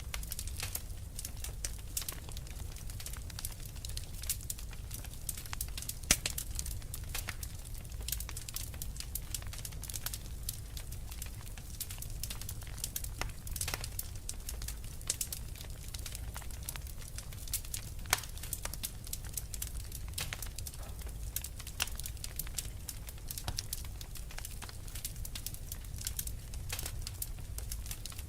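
Wood fire burning in a fireplace: irregular crackles and pops over a low steady rumble of flame, with a sharper pop about six seconds in and another about eighteen seconds in.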